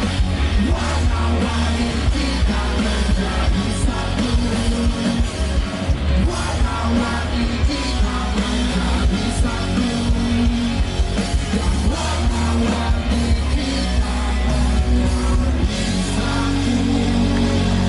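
Rock band playing a song with distorted electric guitars, bass and drums, and a singing voice over them; the low end of the arrangement shifts near the end.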